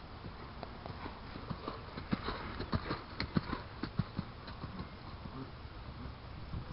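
Hoofbeats of a Thoroughbred horse cantering across a gravel arena, a quick run of sharp thuds that grows loudest about two to four seconds in as the horse passes close, then fades as it moves away.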